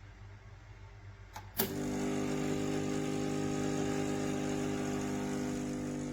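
MiiCoffee Apex espresso machine's pump switching on with a click about one and a half seconds in, then running with a steady hum. By the owner's account it whirs but builds no pressure and draws no water.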